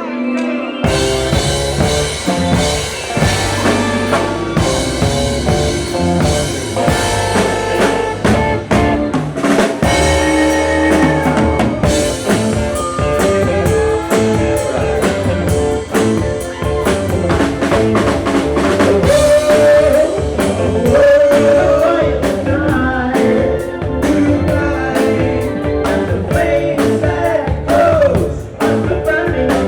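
Rock music with a drum kit, guitar and singing, starting abruptly about a second in.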